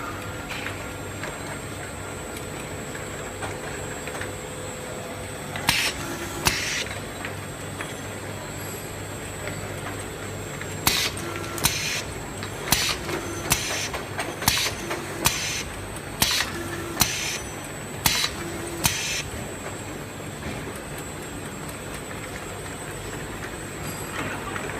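Automatic sauce-bottle filling and capping machine running: a steady hum with a thin high whine, broken by short sharp bursts, a pair about six seconds in and then a dense run of them through the middle.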